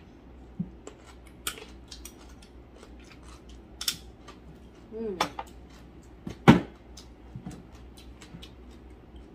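Chopsticks clicking against a ceramic rice bowl and plates while eating: scattered light clicks throughout, with a sharper knock about six and a half seconds in. A brief voice about five seconds in.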